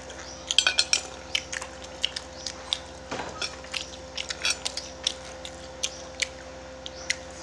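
Eating at a table: scattered sharp clicks and taps of utensils on a plate, several a second in places, over a steady faint hum.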